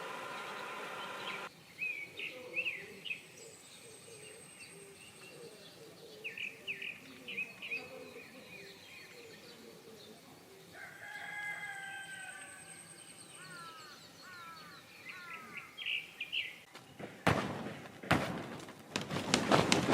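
Songbirds calling and singing in woodland: short chirps, a thin high whistle and repeated downslurred notes. A steady high drone cuts off about a second and a half in. Near the end come loud rustling, crackling noises.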